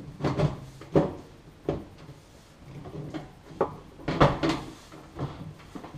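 Sheet-metal outer cover of a microwave being pushed and worked back onto its chassis: a series of irregular knocks and clunks with scraping in between.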